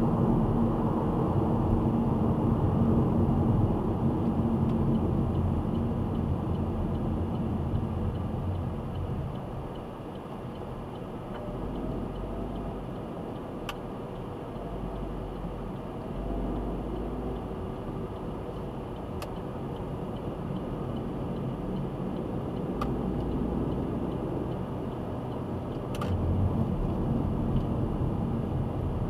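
Car cabin noise heard through a dash camera's microphone: steady road and engine noise, getting quieter about ten seconds in as the car slows from about 35 to 16 mph, then picking up again near the end. A few faint, irregular clicks are scattered through it.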